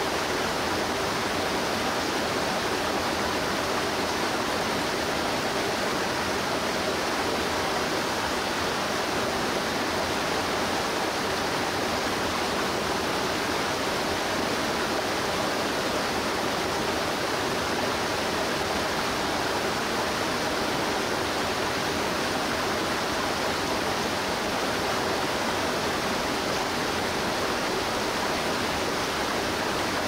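Waterfall: water falling and rushing with a steady, unbroken rush.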